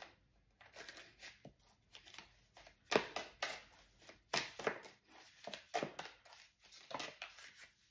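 A deck of tarot cards being handled and shuffled: an irregular run of short, crisp card rustles and snaps.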